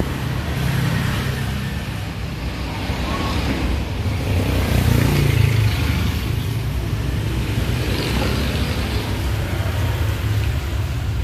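Steady low rumble of road traffic going by, swelling as vehicles pass about four seconds in and again near eight seconds.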